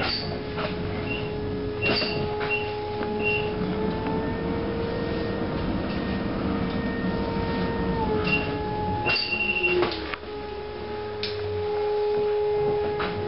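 Ride inside an M-A-N articulated electric trolleybus under way: a steady electric whine that steps up in pitch about four seconds in and drops back about four seconds later, over the rumble of the moving bus. Rattling knocks and short high squeaks from the body and fittings come and go.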